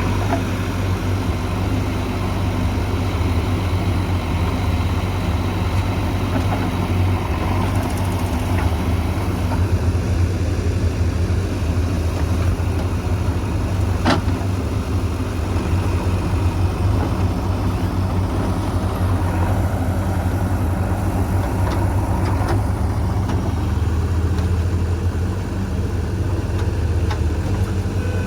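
Heavy diesel engine running steadily at a low, even hum, with one sharp click about halfway through.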